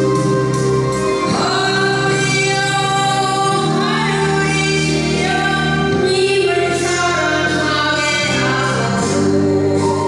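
A woman singing a Korean trot song into a microphone over instrumental accompaniment; her voice comes in about a second in.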